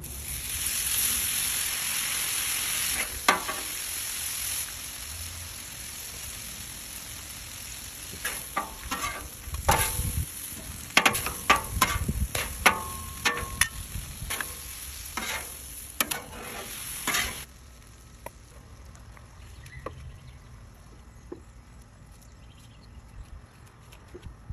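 Shredded pork sizzling on a hot, oiled flat-top griddle, loudest in the first few seconds after it is laid down. Midway, wide metal spatulas clack and scrape against the griddle as the meat is tossed. The sizzle stops abruptly about two-thirds of the way through, leaving only faint handling sounds.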